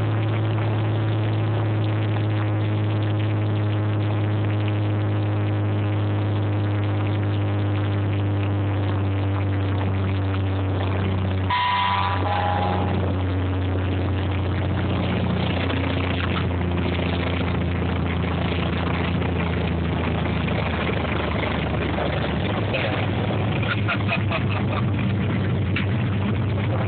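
Cessna 210's piston engine and propeller droning steadily at low power through the landing, heard from inside the cabin. About halfway through, a brief high tone sounds and the engine note drops a little; after that the drone is joined by rougher noise as the plane rolls on the runway.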